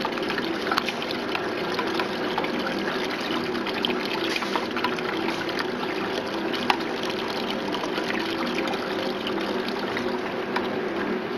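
A thin stream of sodium hypochlorite solution trickling steadily into a plastic jug of coloured effluent, dosed to bleach out its colour. A faint steady hum runs underneath.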